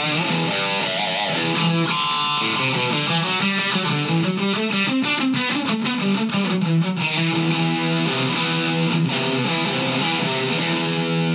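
Heavily distorted electric guitar played through a Vox Valvetronix AD50VT-XL amplifier on its high-gain 'Raged' metal setting. Quick picked runs of notes through the middle give way to held chords in the last few seconds.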